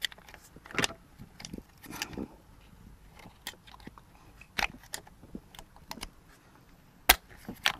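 Plastic fuel injector electrical connectors being pried and popped off by a gloved hand: a scattered series of sharp plastic clicks with handling noise between them, the loudest click about seven seconds in.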